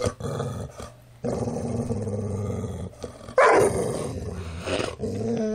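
A dog grumbling in drawn-out vocalizations. A low growl lasts about a second and a half, then a louder, higher moan comes a little past the middle, and wavering pitched moans start near the end.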